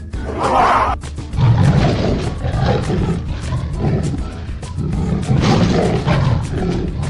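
Leopard growling and roaring sound effect, a string of rough growls one after another, over children's background music.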